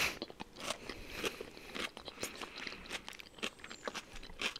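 Close-miked chewing of a crunchy raw vegetable salad: irregular crisp crunches and bites, with a louder crunch at the start and another near the end.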